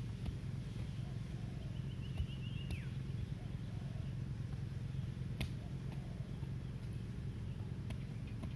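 A bird sings a short rapid trill that ends in a falling note, once, about two seconds in, over a steady low rumble. A single sharp click comes about five and a half seconds in.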